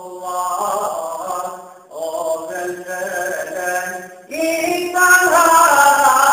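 Man singing an ilahija, a Bosnian Islamic devotional hymn, in long drawn-out, chant-like phrases. He breaks off briefly about two seconds in and again about four seconds in, and sings louder in the last phrase.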